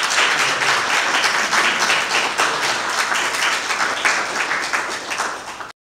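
Audience applauding, many hands clapping steadily, cut off suddenly near the end.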